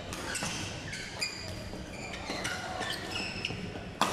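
Badminton rally: rubber court shoes squeaking in short chirps on the court floor, and rackets striking a shuttlecock, with one sharp crack of a hit near the end. The sound echoes around a large sports hall.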